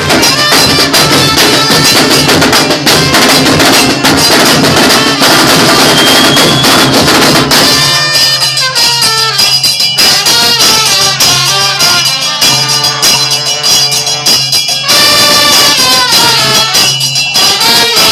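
Band music with dense, continuous percussion over a steady bass line. Just before halfway through the texture thins and a clear melody line stands out, and it fills out again a few seconds before the end.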